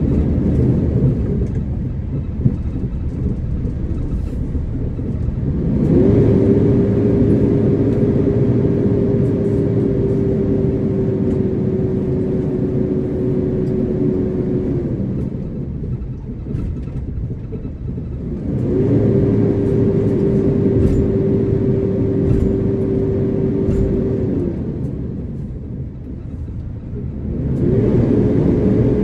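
A moving motor vehicle, heard from on board: a steady engine and road rumble. Three times a whine rises quickly, holds steady for several seconds, then drops away, about six, nineteen and twenty-eight seconds in.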